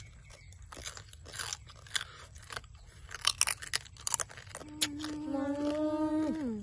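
Crunching and chewing of small fried rice-field crabs, shell and all, in many sharp crunches. Near the end a long hummed "mmm" comes in and drops in pitch as it ends.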